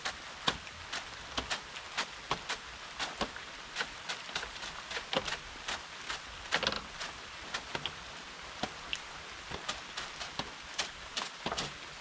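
Rain falling steadily, with close drops striking irregularly, a few a second, over the even hiss.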